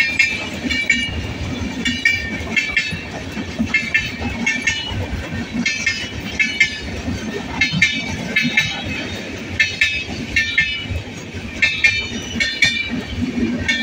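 Indian Railways express passenger coaches passing close by at speed: wheels clattering over rail joints in quick repeated pairs of clicks, over a steady rumble of the running gear.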